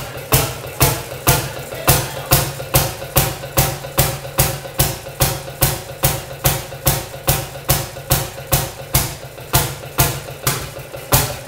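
Fairmont QB single-cylinder two-stroke engine of a restored Fairmont S2 railroad motorcar idling slowly, firing in sharp, even pops about twice a second over a steady low hum.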